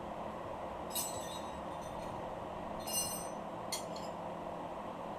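Metal hand tools clinking against metal during bolt tightening on the suspension: a few short ringing clinks, about a second in, near three seconds and again just after, over a steady background hiss.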